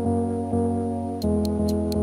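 Background music of soft sustained keyboard chords. A light, even ticking beat of about four ticks a second joins in a little past halfway.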